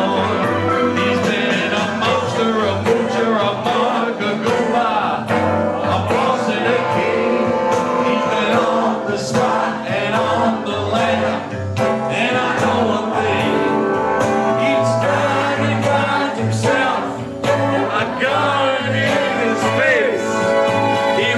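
A roomful of people singing together over music with a beat.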